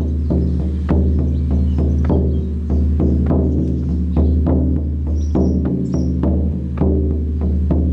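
An 18-inch deerskin shamanic frame drum on a mulberry wood frame, beaten with a firm beater in a steady beat of about two strikes a second. Each stroke gives a deep booming tone whose overtones ring on into the next stroke.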